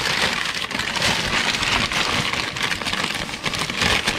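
Crumpled paper crinkling and rustling continuously as hands spread it and tuck it around a car's front suspension upright.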